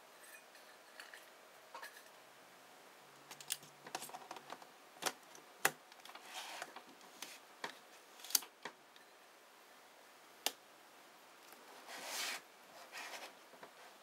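Scattered sharp clicks and short scrapes of a manual-focus Nikon AI-S 35mm f/1.4 lens being handled and twisted onto the metal bayonet mount of a TC-16A teleconverter.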